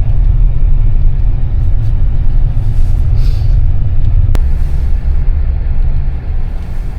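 Steady low rumble of a vehicle driving on a snow-covered road, heard from inside the cabin, with one sharp click about four seconds in.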